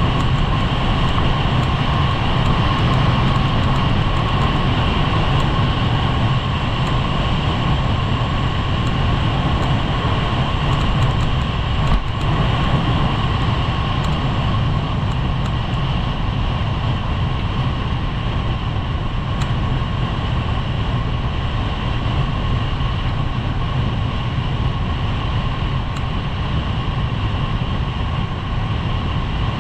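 Skis running over firm groomed snow with wind rushing on the microphone: a steady loud rushing noise with a low rumble. There is a brief knock about twelve seconds in, where a ski strikes a bump.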